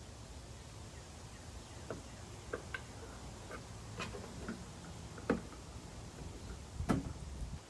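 Scattered light clicks and taps of plastic parts being handled, the coolant-burping funnel kit being worked on the radiator, with a louder knock about seven seconds in, over a low steady rumble.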